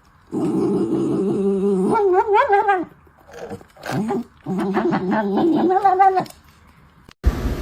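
A dog vocalizing in two long, drawn-out calls, the first wavering up and down in pitch near its end. Near the end, a sudden loud burst of noise cuts in.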